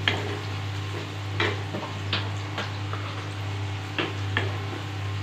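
Chopped onions sizzling in hot mustard oil in a nonstick kadhai while a wooden spatula stirs them, scraping and clicking against the pan every so often, over a steady low hum.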